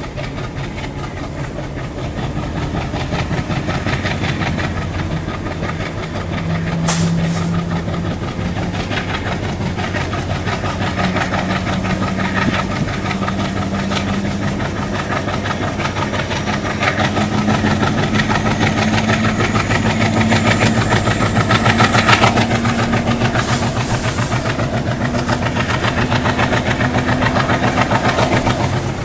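Twin WDM-3A ALCo diesel-electric locomotives chugging as they accelerate, the engine note climbing slowly in pitch. Over the second half a high turbocharger whistle, the so-called cooker sound, rises steadily in pitch.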